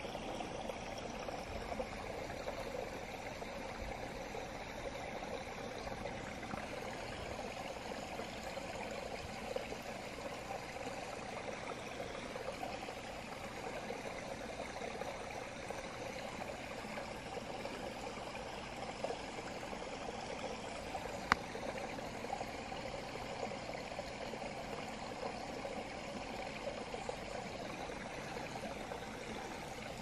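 Small stream flowing: a steady rush of running water, with one sharp click about two-thirds of the way through.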